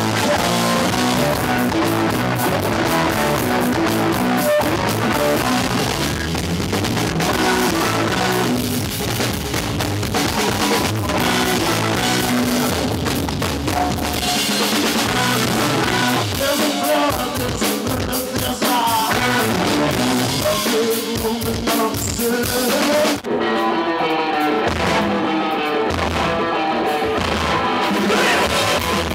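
Live band playing loud amplified music with drum kit, electric guitar and bass. About two-thirds of the way through, the cymbals drop out for a few seconds, leaving drums and guitar lines, before the full band comes back.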